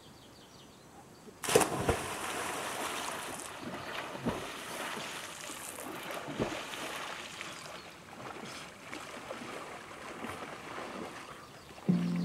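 Lake water splashing and lapping, starting suddenly about a second and a half in, with a few sharper splashes. Music comes in near the end.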